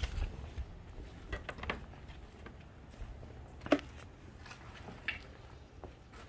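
A few scattered light clicks and knocks over a faint low rumble, with one sharper click near the middle.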